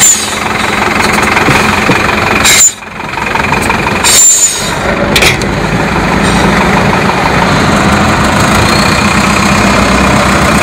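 Avia trial truck's diesel engine running steadily as the truck crawls over rough ground. The sound drops out sharply for a moment twice in the first half.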